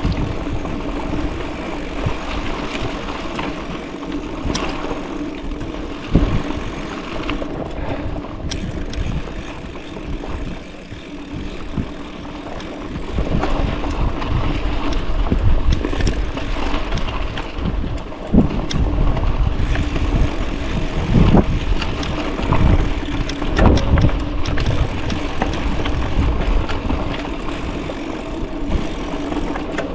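Bicycle ridden over a rough, rocky dirt trail: the tyres rumble over stones and bumps, with frequent sharp knocks and rattles from the jolts over a steady low hum.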